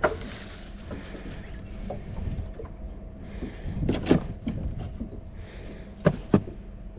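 A plastic tackle box being handled: sharp clicks and knocks from its lid and latches, once about four seconds in and twice in quick succession near the end, over a low steady rumble.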